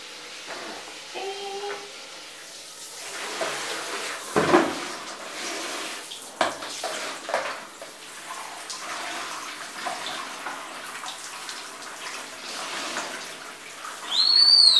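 Water from a handheld shower head running and splashing onto a toy poodle in a plastic basin, with scattered splashes as wet fur is rubbed. Near the end comes a short, loud, high-pitched squeal that rises and falls.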